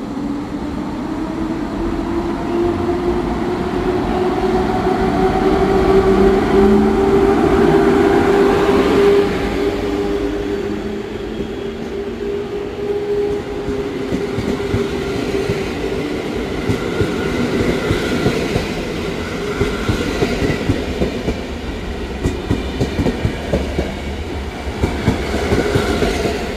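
PKP Intercity EP07 electric locomotive pulling away with a passenger train: a whine from its traction motors rises slowly in pitch as it accelerates past. After that the coaches roll by with a rhythmic clickety-clack of wheels on the track.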